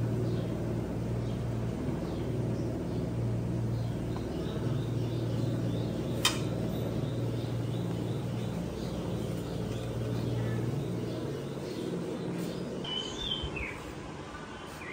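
A steady low hum that fades out about two-thirds of the way through, with a single sharp clink of steel utensils about six seconds in; birds chirp faintly near the end.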